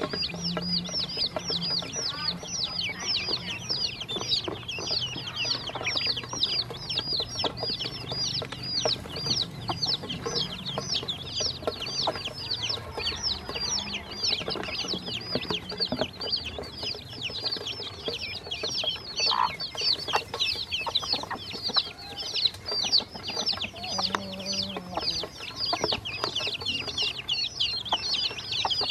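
A chorus of ducklings and chicks peeping continuously, many short high calls overlapping several times a second. Light clicks of beaks pecking feed off the stainless steel bowl come through underneath.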